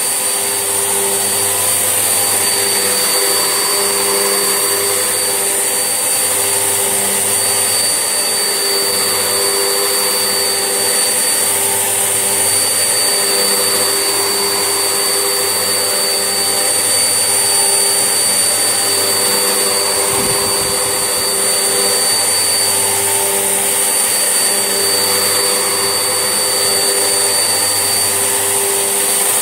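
Vax Essentials vacuum cleaner running steadily while hoovering, its motor pitch wavering slightly as it is pushed back and forth, with a brief low bump about two-thirds of the way through.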